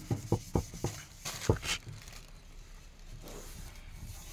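Steel-wool scrubber rubbing over a bare metal motorcycle fuel tank in quick strokes, scouring off leftover paint after paint remover. There are several short scrapes in the first second, then one longer, louder scrape about a second and a half in, and quieter rubbing after that.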